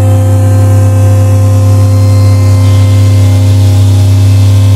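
Loud electronic drone from synthesizers and effects: a steady deep hum layered with sustained overtones, and a hiss in the upper range that swells about two and a half seconds in.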